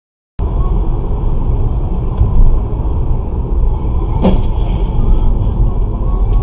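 Vehicle on the move: a steady low road and engine rumble that cuts in abruptly about half a second in, with one short knock about four seconds in.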